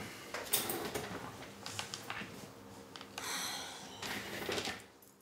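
Soft rustling and movement noises in a quiet small room, with a couple of brief noisy swells.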